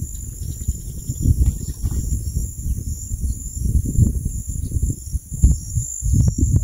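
Wind buffeting the microphone in uneven gusts, over a steady high-pitched chorus of insects; a few sharp clicks near the end.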